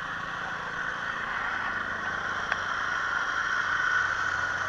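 Motor scooter idling while traffic swishes past on a wet street; the noise swells a little near the end, and a single click sounds about halfway through.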